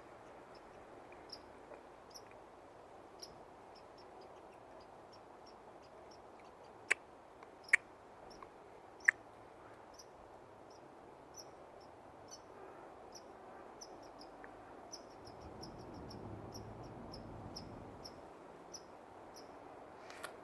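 Baby squirrel squeaking: short, high-pitched chirps repeated irregularly, with three much louder, sharp squeaks about seven to nine seconds in.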